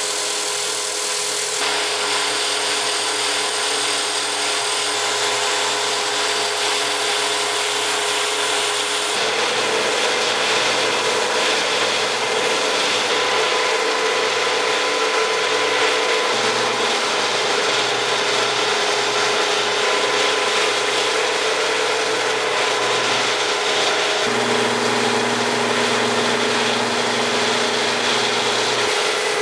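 Milling machine end mill cutting a solid 6061 aluminium billet: a steady machining noise with a constant tone from the spinning cutter, and the chip-cutting texture. The sound changes abruptly a few times as one cut gives way to another.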